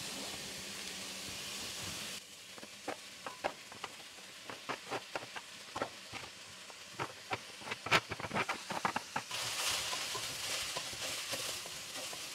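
Vegetables sizzling in a frying pot. About two seconds in the sizzle drops away as cooked rice is scraped in with a spatula, a run of sharp taps and knocks. The sizzle returns near the end as the rice is stirred through.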